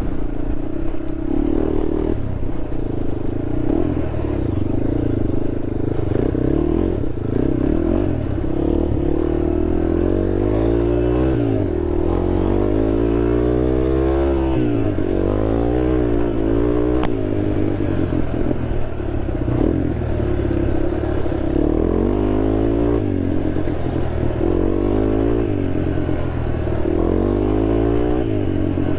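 Honda TRX sport quad's engine running under load off-road, its pitch rising and falling as the throttle opens and closes, with one long climb and drop in revs around the middle.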